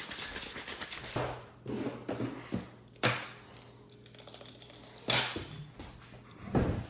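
Irregular clicking and rustling of small tools and parts being handled, over a faint low hum.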